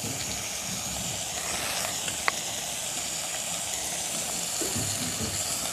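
Steady sizzling hiss from the hot kadai on the fire, with one sharp click about two seconds in.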